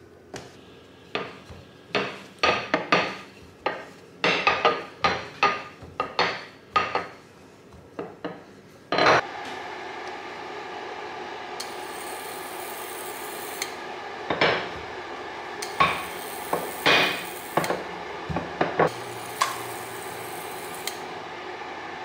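Bread dough being handled on a countertop and then in a frying pan: a run of sharp, irregular knocks and slaps for the first nine seconds. After that a steady hum takes over, with a few more knocks as the dough is pressed into the nonstick pan.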